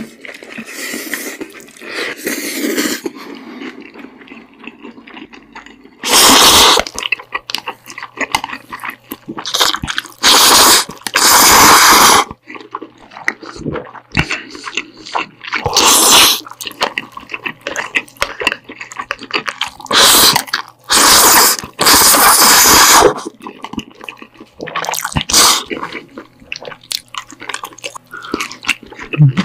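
Close-miked eating of black bean sauce noodles (jjajangmyeon): several loud slurps, each a second or two long, with wet chewing and mouth sounds in between.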